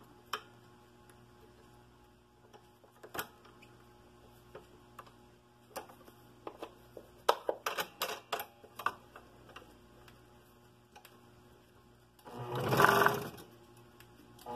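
Small metallic clicks and taps as a scroll saw blade is threaded through a drilled entry hole and clamped into the saw's upper blade holder. About twelve seconds in, the scroll saw runs briefly for just over a second.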